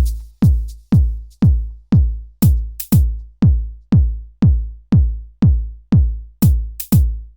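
Electronic dance music driven by a heavy drum-machine kick about twice a second, each hit dropping in pitch, with occasional sharp high hits; it cuts off abruptly near the end.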